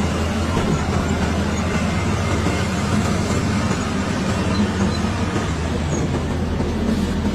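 Caterpillar bulldozer's diesel engine running steadily.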